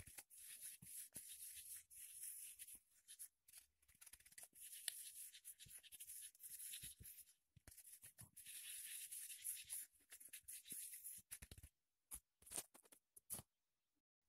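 Flour being sifted through a hand sieve: a faint, scratchy rustling that comes in three long stretches with short gaps, then breaks into a few separate scratches near the end.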